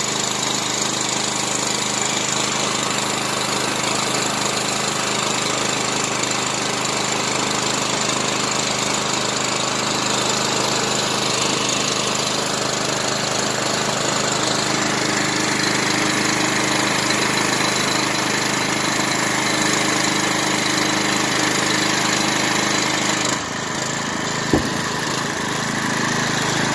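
Gas-engine pressure washer running steadily. About 23 seconds in its sound changes, and a sharp click follows about a second later.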